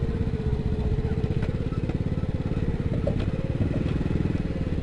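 Small motorcycle engine running at low speed, a steady rapid putter heard from on the bike, with a few light clicks and rattles along the way.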